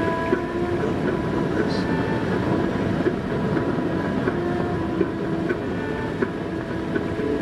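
Steady road rumble inside a moving car's cabin, with music from the car stereo: held notes that change pitch every second or so.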